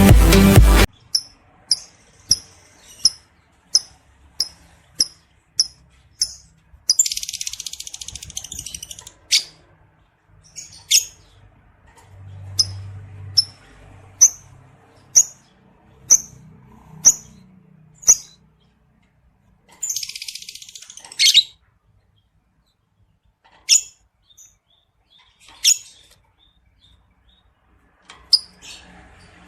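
Lovebird calling: sharp high chirps about once a second, broken twice by a long rattling chatter, the 'ngekek' trill of a lovebird in breeding condition. A burst of electronic music cuts off about a second in.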